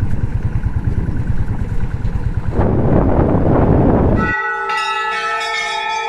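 Motorcycle engine and wind noise while riding, swelling into a brief rush of noise. About four seconds in this cuts off suddenly to metal temple bells ringing, several tones held together and sustaining.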